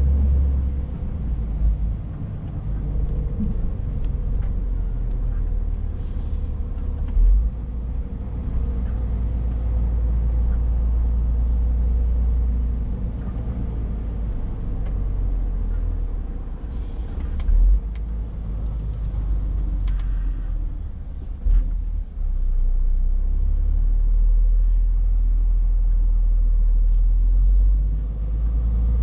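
Scania S460's six-cylinder diesel engine running at low speed while the truck moves slowly, heard inside the cab as a deep, steady rumble. A few short thumps break through it.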